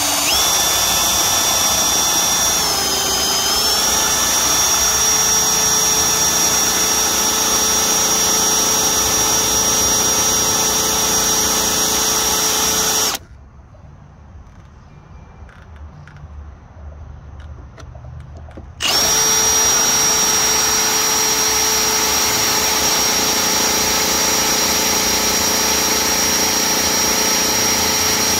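Power drill running with a steady motor whine, driving a twist bit into a rusted Phillips screw whose head is stripped, to drill it out of a bus marker-light housing. The pitch sags briefly about three seconds in as the bit bites. The drill stops at about thirteen seconds and starts again after about five seconds.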